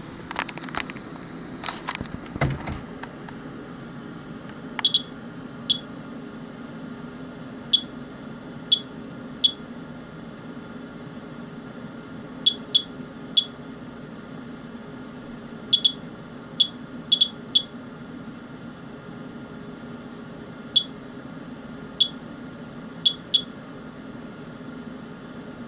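Geiger counter chirping at random, irregular intervals, about twenty short chirps, each one a detected count from a rain sample that is being checked for radioactivity. A few handling knocks sound in the first couple of seconds, under a steady low hum.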